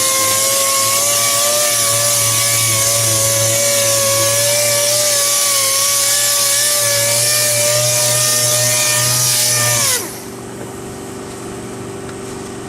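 Dual-action (DA) sander running steadily while wet sanding car paint with 1500-grit, a high whine over hiss. About ten seconds in it is switched off and its pitch falls as it winds down, leaving a lower, quieter steady hum.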